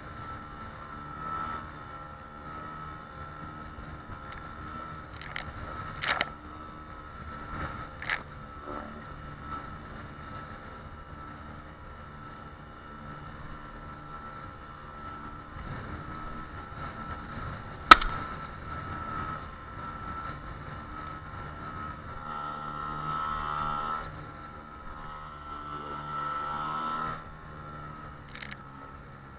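An outboard motor runs steadily, pushing an inflatable PVC boat through choppy river waves. The hull slaps and knocks against the waves several times, hardest about halfway through.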